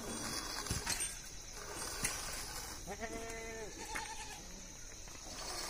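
A goat bleats once about three seconds in, a call of under a second, and a shorter wavering call follows about a second later. A few sharp clicks come earlier, over a steady background hiss.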